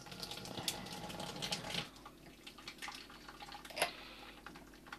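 Hot wort trickling and spattering from a boil kettle's stainless ball-valve tap into a plastic fermenting bucket, strongest for the first two seconds, then quieter. There is one sharp knock about four seconds in.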